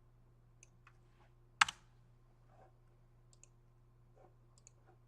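A few sparse clicks at a computer, one sharp louder click about a second and a half in, over a faint steady low hum.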